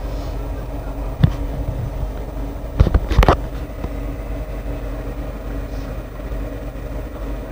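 Handling knocks from the camera and picture book: one sharp knock about a second in and a quick cluster of knocks near three seconds, over a steady low background hum.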